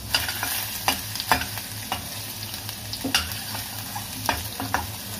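Chopped garlic and julienned ginger sizzling in a little hot oil in a stainless steel kadhai, stirred with a slotted metal spatula that scrapes and clicks against the pan at irregular moments.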